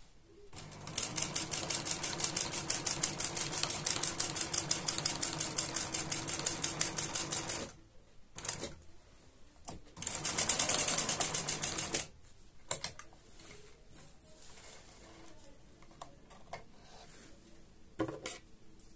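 Sewing machine stitching at a fast, even pace, stopping after about seven seconds, then a second shorter run of stitching; a couple of light clicks follow.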